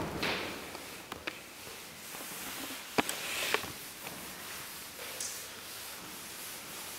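Soft rubbing of a board eraser wiping chalk off a blackboard, with a few sharp knocks; the loudest comes about three seconds in.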